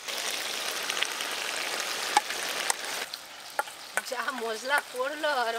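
Mutton frying in a wok with onion and tomato, sizzling steadily as the yogurt spice paste goes in; the sizzle dies down after about three seconds, and a voice comes in near the end.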